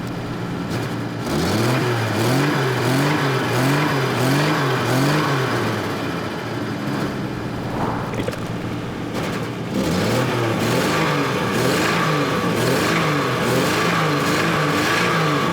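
Volvo 164's B30 inline-six engine revved in quick repeated throttle blips, about two a second, in two runs with a few seconds of steadier running between. The engine is worn, with a lot of blow-by coming out of the head.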